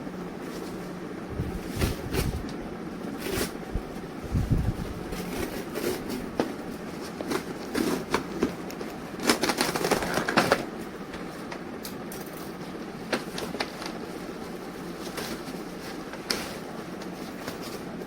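Small plastic toys and their packaging being handled: scattered clicks and rustles, with a denser stretch of crinkling about nine seconds in, over a steady background hum.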